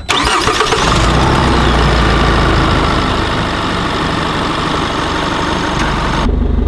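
2020 Chevrolet Colorado ZR2 Bison's 2.8-litre Duramax four-cylinder turbodiesel starting up and running steadily at idle. Near the end the higher hiss drops away suddenly, leaving a lower steady rumble.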